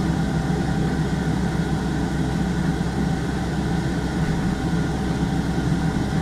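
Cosori TurboBlaze air fryer running: its fan gives a steady whir with a low hum.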